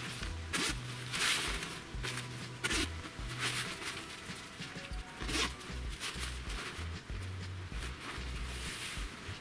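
Nylon curtain of a fishing umbrella rustling, with several brief swishes as the cloth is handled and hung around the canopy rim. Background music with a bass line plays under it.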